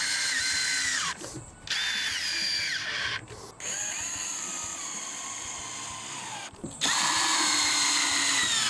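Cordless drill driving screws through a metal table-leg bracket into a table top: four runs of motor whine with short pauses between them, the pitch dropping at the end of each run as the screw seats.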